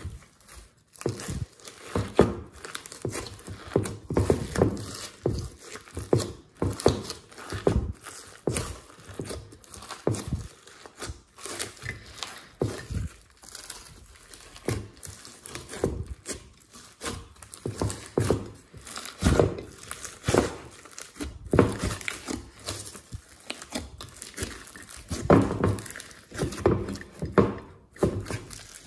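Foamy slime loaded with glitter, sprinkles and beads being kneaded and squeezed by hand in a glass dish: an irregular, continuous run of crackling, squishing and popping sounds.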